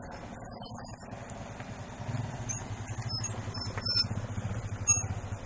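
Motorcycle engine running as the bike rides up on a dirt road: a low, evenly pulsing drone that grows louder from about two seconds in as it comes closer. A few light clicks sit over it, the sharpest near the end.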